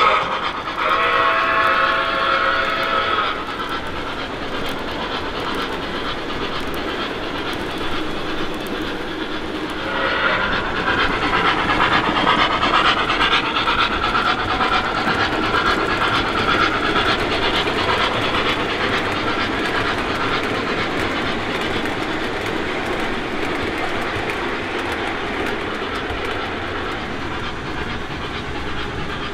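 O gauge model steam locomotive running on track, its onboard sound system blowing a chime whistle in a blast that ends about three seconds in. A second long whistle sounds from about ten seconds in, over the continuous running noise of the engine and its wheels on the rails.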